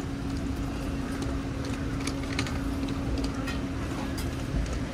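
Street-stall ambience: a steady low hum and rumble, with a few faint light clicks scattered through it.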